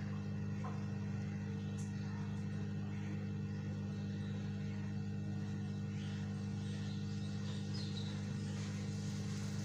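Hot-air rework gun blowing steadily with a low, even hum while it heats a small IC on a circuit board to desolder it.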